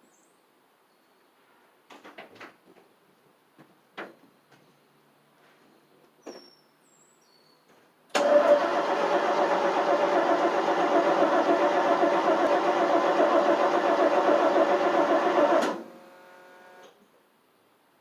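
1988 FMC 6000's engine cranking on the starter for about seven and a half seconds without firing, then stopping abruptly; a few light clicks and knocks come before it. It cranks but won't catch because no fuel is reaching the carburettor.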